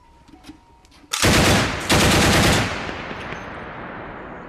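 Tripod-mounted heavy machine gun firing two short bursts of automatic fire, the first about a second in and the second just after, with the report echoing and fading away afterwards.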